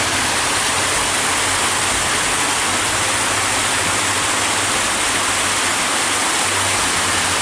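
Water rushing down a man-made stepped stone waterfall: a steady, loud, even rush of falling water.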